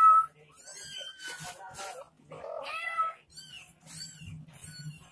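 Cat meowing several times: a loud meow right at the start and another about two and a half seconds in, with fainter high-pitched mews between and after. A mother cat calling while she looks for her kittens.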